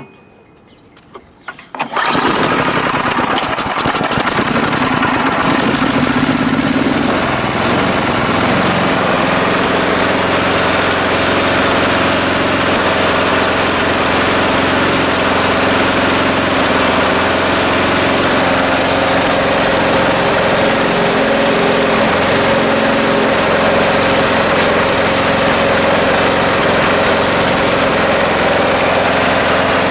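Ariens 824 snow blower's small four-stroke engine is pull-started and catches about two seconds in, then runs steadily, now fed through its newly replaced fuel line.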